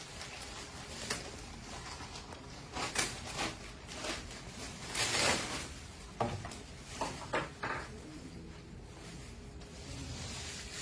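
Handling noises from fitting anesthesia breathing-circuit parts: irregular rustles and light knocks, with a longer rustle about halfway through and a quick run of clicks soon after.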